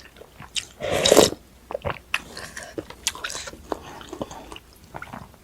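Close-miked chewing and biting of food, many small wet clicks with a louder noisy burst about a second in.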